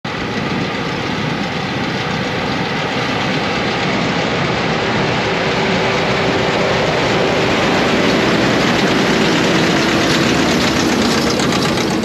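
Two Massey Ferguson 5711 tractors with round balers in tow running past close by, a steady diesel engine and machinery din that swells as they draw near around the middle and eases slightly near the end.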